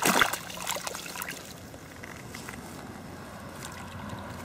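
Handling a crucian carp in a wet landing net: crackling and rustling of the net mesh and dry reeds with dripping water, busiest in the first second or so, then a steady faint hiss.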